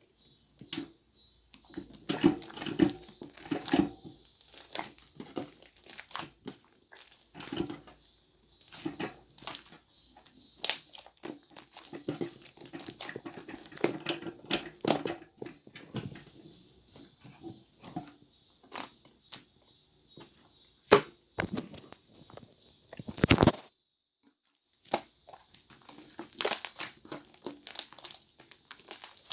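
Cloud slime being squished and pulled apart by hand, making irregular crackling, tearing and popping sounds. There is a short break near the end.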